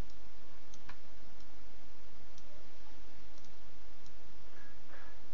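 Faint, scattered clicks of a computer mouse, about a dozen spread irregularly, over a steady microphone hiss.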